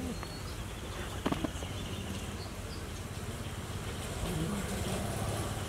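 Outdoor background with a steady low hum, like a distant engine, and a couple of sharp clicks about a second in.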